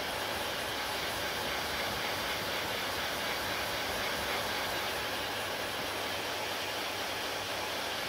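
Handheld hair dryer blowing steadily on hair, an even rushing noise that holds at one level throughout.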